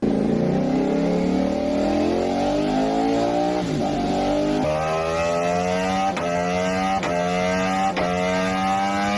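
Ducati V4 motorcycle engine accelerating, its pitch climbing steadily. There is a short break about four seconds in, then three brief dips about a second apart.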